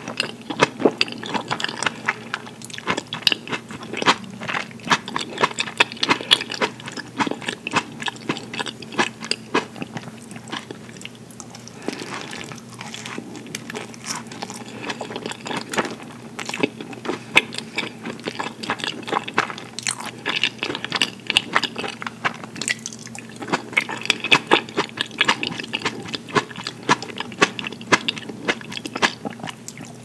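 Close-miked chewing of tomato slices and fresh mozzarella in balsamic dressing: a dense run of quick mouth clicks, thinning out briefly twice.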